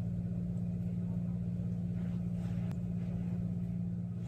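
Steady low background hum with a few faint scrapes of a spatula against a metal mixing bowl as cake batter is scraped into a bundt pan.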